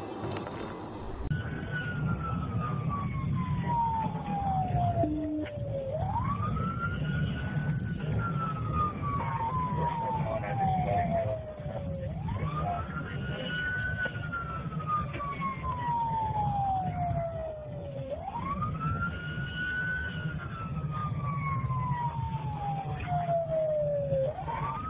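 Police car siren on a slow wail, starting about a second in. Each cycle climbs quickly and then sinks slowly over about six seconds, above a steady rumble of engine and road noise.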